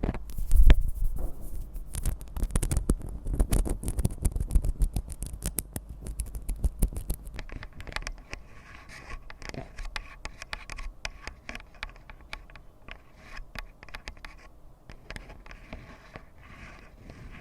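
Close-up ASMR tapping and scratching on objects, a quick irregular run of small clicks and scrapes. It is louder and heavier for the first several seconds, then goes on softer and lighter from about eight seconds in.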